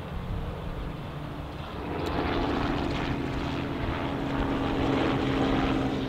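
Helicopter flying overhead: a steady engine and rotor drone that grows louder about two seconds in.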